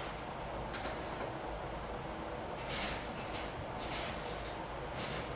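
Lug nuts being run onto a riding mower's rear wheel with a 3/4-inch deep-well socket on a speed-handle wrench: scattered short metallic clicks and scrapes, a few more of them in the second half, over a steady background hiss.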